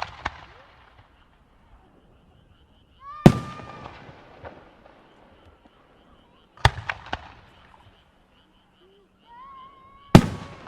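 Aerial fireworks shells bursting, loud bangs about every three and a half seconds, each trailing off into crackling and echo; the burst just before seven seconds is followed by two quick smaller bangs.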